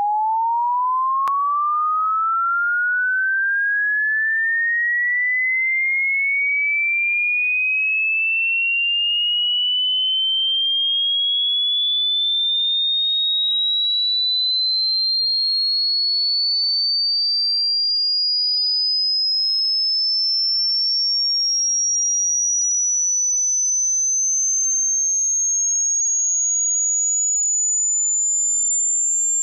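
Pure sine test tone sweeping slowly and smoothly upward in pitch, from about 800 Hz to about 7,500 Hz, at a steady level: a hearing-range test sweep.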